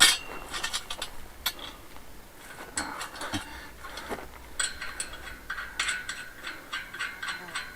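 Metal clinking and rattling: a sharp knock at the start, then irregular clicks and clinks, with ringing metal tones about halfway through.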